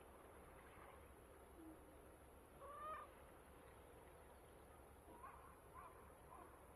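Near silence with faint distant bird calls: one short call rising in pitch about three seconds in, then a few brief chirps near the end.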